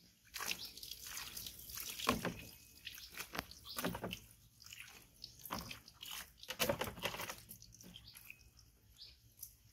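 Water splashing in a plastic basin: a plastic dipper scooping and pouring water, and a hand dipping and splashing, in a series of irregular splashes.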